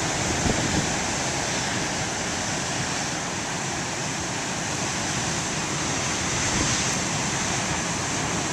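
Ocean surf breaking and washing, with steady wind blowing across the microphone.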